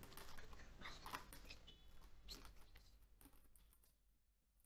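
Faint clicks and rustles of brush pens being handled and packed back into their case, dying away to near silence about four seconds in.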